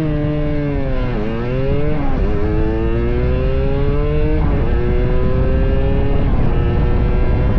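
Honda Dash 125 two-stroke single-cylinder motorcycle engine accelerating. Its pitch climbs and drops back several times as the rider shifts up through the gears, over steady road and wind noise.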